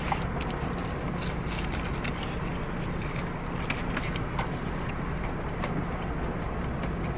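A steady low hum with scattered small clicks and taps from handling food and takeout containers while eating.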